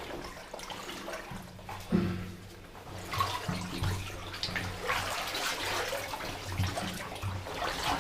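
Wading through flooded tunnel water: legs sloshing and splashing with each step, getting busier from about three seconds in.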